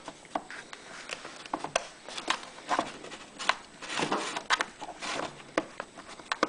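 Hands handling small brass and plastic fuel-kit fittings: scattered light clicks, taps and rustles at irregular times.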